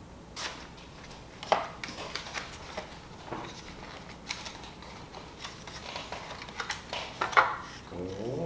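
Cardboard box and plastic tray of a gel nail strip kit being handled: a string of sharp clicks, taps and crinkles as the paperboard box is opened and the plastic tray is pulled out and turned over, the loudest snaps about a second and a half in and near the end.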